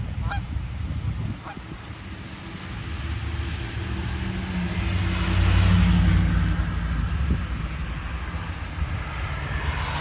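Canada geese give a few short honks in the first second or two. Then a vehicle drives past: its noise swells to the loudest point about halfway through and fades away again, over a steady low rumble.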